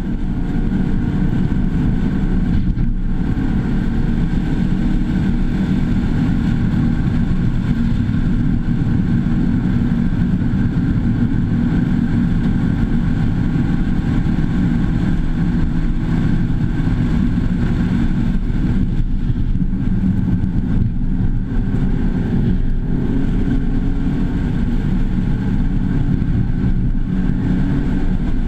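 Mazda2's four-cylinder engine pulling hard on track, heard from inside the cabin together with road and wind noise. The sound holds steady throughout with only small shifts in pitch.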